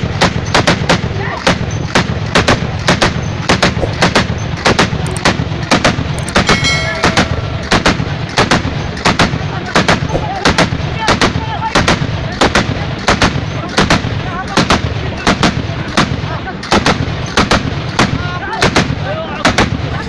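Tripod-mounted heavy machine gun firing at close range, loud shots coming about two to three a second without a break, over a dense crackle of further gunfire.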